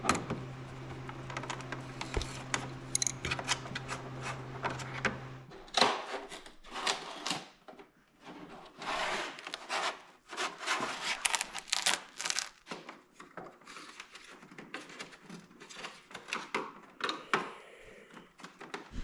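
Hand tools and the Honda Gold Wing GL1500's plastic fairing parts being handled: a wrench on a nut, then an irregular run of clicks, taps and rubbing as the plastic panels are worked loose. A steady low hum runs under the first five seconds and then stops.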